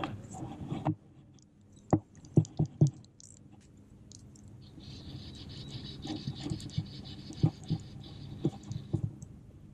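Handling noise on a body-worn action camera during fly casting: a fabric sleeve rustles over the microphone at first, then come a few sharp knocks and taps. A steady high hiss runs for the second half, with light taps over it.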